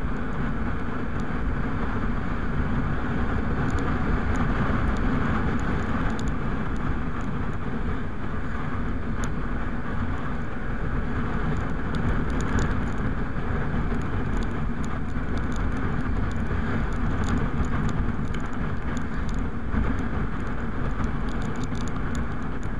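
Motorcycle riding steadily at road speed: wind rushing over the microphone and tyre and road noise, with the engine running underneath.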